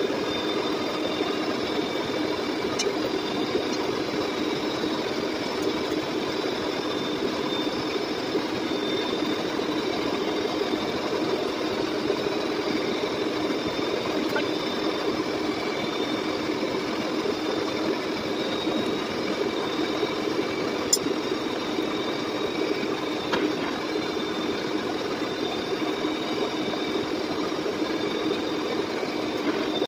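Lucas model 41 horizontal boring mill running steadily with its cutter milling along the edge of a metal bracket: an even machine hum carrying a few faint, high, steady whining tones.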